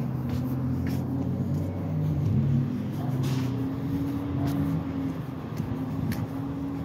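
Recycling truck's engine running steadily, a deep hum whose pitch shifts a little. A few light clicks sound over it.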